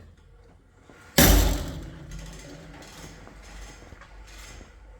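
A single loud slam about a second in, ringing out and fading over the next second or so.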